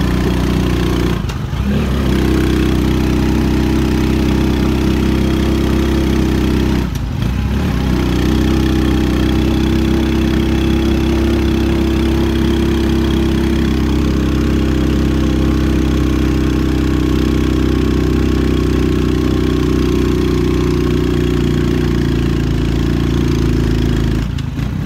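Motorcycle engine running steadily while riding, its note dropping briefly about a second in, around seven seconds in, and near the end.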